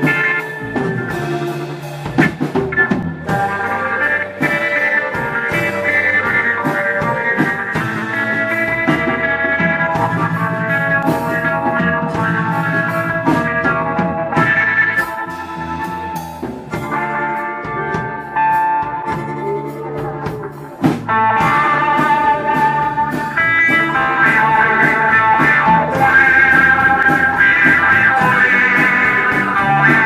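Live psychedelic rock band playing an instrumental passage on electric guitar, Vox Jaguar combo organ, bass and drums. Just after the middle it dips, then comes back in on a hard hit and plays louder and fuller.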